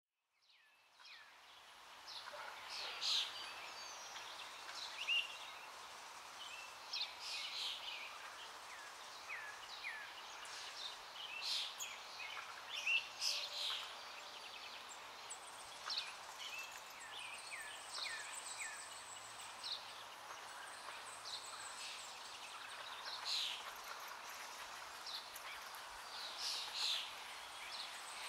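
Birds chirping and calling: many short, high chirps scattered over a faint steady hiss, starting about a second in.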